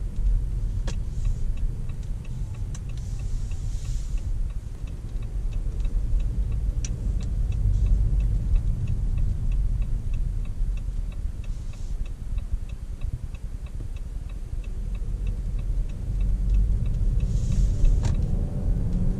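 Inside the cabin of a moving Jeep Compass 1.5 e-Hybrid: a steady low road and drivetrain rumble. Over it the turn-signal indicator ticks evenly from a couple of seconds in until about halfway through, while the car turns.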